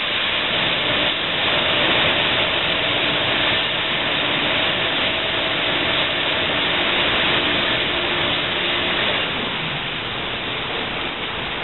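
Douglas STW-2000 smoke truck washer running its wash cycle with the door open: detergent wash water is pumped through the oscillating spray arms and stainless steel nozzles in a steady, heavy spray. A faint hum underneath fades about nine seconds in.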